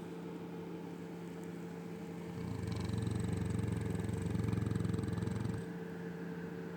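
Cane Corso snoring in its sleep: one long, rattling snore of about three seconds, starting about two and a half seconds in, over a steady low hum.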